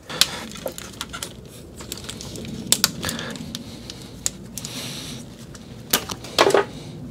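Electrical tape being pulled off its roll and wound around a bundle of wires: a run of short crackles and clicks, with a longer rasp of tape unrolling about two-thirds of the way through and a few louder handling knocks near the end.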